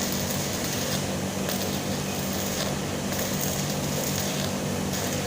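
Stick welding arc crackling and hissing steadily, over a constant low hum.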